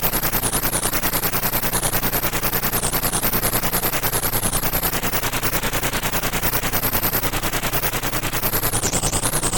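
Electronic pulsing noise: a rapid, even train of pulses, about a dozen a second, with a high whistling tone sweeping up and down above it and a steady low hum beneath.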